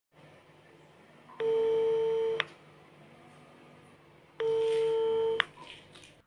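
Telephone ringback tone in the earpiece of a mobile call being placed: two steady one-second beeps about three seconds apart, the line ringing while it waits to be answered.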